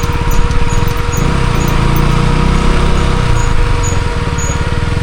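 Motorcycle engine running steadily, its low pulsing rumble mixed with road and wind noise and a steady thin whine.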